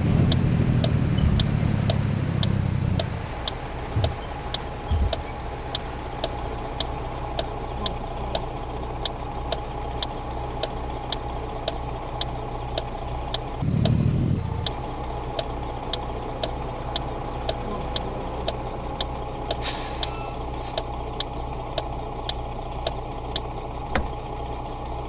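Truck engine running steadily, louder for the first three seconds and again briefly around fourteen seconds, with a regular ticking about twice a second throughout and a short hiss near twenty seconds.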